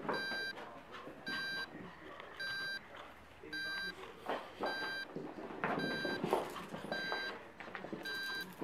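Electronic beeper sounding a short high beep about once a second, evenly and without pause, eight times over.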